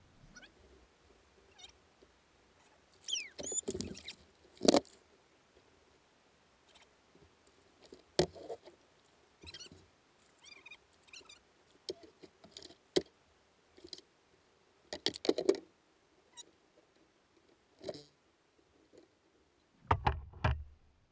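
Scattered knocks, clicks and rattles of fishing rod, reel and gear being handled in a kayak while a smallmouth bass is landed, with a brief squeaky glide about three seconds in and a short cluster of thumps near the end.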